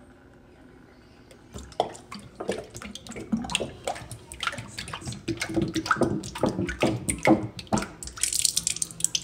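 Eggnog glugging out of a plastic half-gallon jug and splashing into a stainless steel sink. It starts about a second and a half in as an irregular run of gulps and splashes, with a louder hissing splash near the end.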